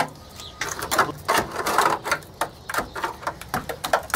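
A hand tool tapping and picking at the rusted-through steel rocker sill of a GAZelle van. It gives a fast, irregular run of sharp metallic clicks and scrapes as rotten metal and rust flakes break away.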